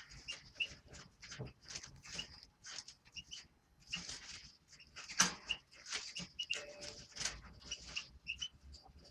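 Small caged songbird giving short chirps, among many quick clicks and rustles.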